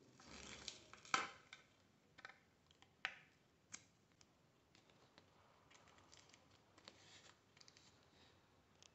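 Faint crinkling and rustling of clear adhesive tape being wrapped over an aluminium-foil cap on a plastic tube, with a few brief sharper crackles about one and three seconds in and small scattered clicks after.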